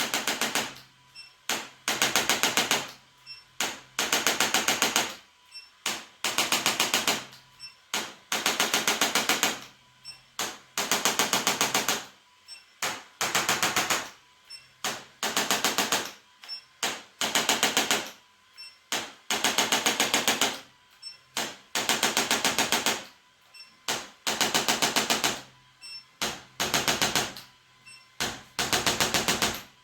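Handheld electric percussion tool, such as a massage gun or an adjusting instrument, firing very fast taps in bursts of about a second, switched on and off over and over with short gaps.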